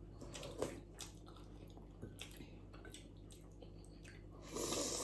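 Quiet close-up eating sounds: soft wet chewing and small mouth clicks, then a louder, half-second rush of noise about four and a half seconds in.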